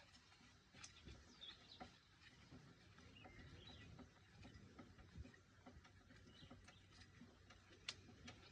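Near silence: faint scattered clicks and ticks, with a few faint short high chirps.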